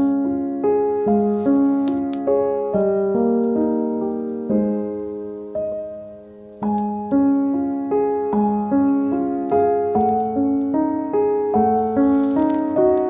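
Background solo piano music: a gentle run of notes that ring and fade, briefly dropping away about six seconds in before starting again.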